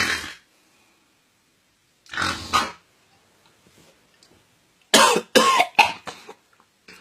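A man making exaggerated, harsh throat and nose noises as comic snoring sounds: two separate bursts, then a quick run of four or five louder ones about five seconds in, some with a bending, voice-like pitch.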